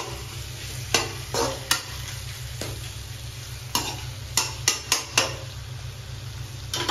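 Pork pieces coated in masala sizzling as they fry in a pan and are stirred. The stirring utensil knocks and scrapes against the pan about nine times at irregular moments, over a steady low hum.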